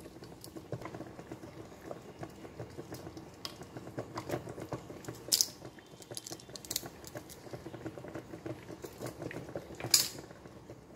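Water simmering in the lower pan of a stovetop steel double boiler: a faint, steady bubbling and crackle. Two sharp clicks sound, about five seconds in and near the end.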